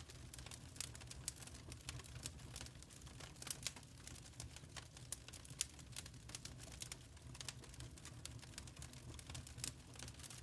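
Wood fire in a fireplace crackling, with irregular sharp snaps and pops over a low steady rumble.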